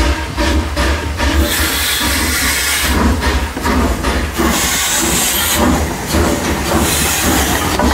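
Steam train running: a steady low rumble with bursts of hissing steam every couple of seconds.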